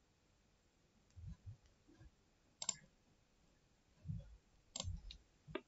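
A few sharp computer mouse clicks, about three spread over several seconds, with soft low thumps between them; otherwise near silence.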